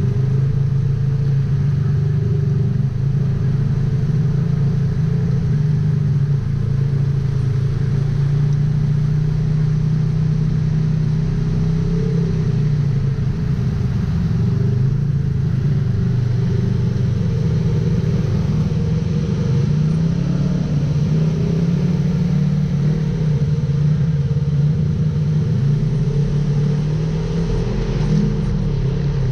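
Polaris RZR XP 1000 side-by-side's twin-cylinder engine running under way, with a steady note that dips in the middle and picks up again later.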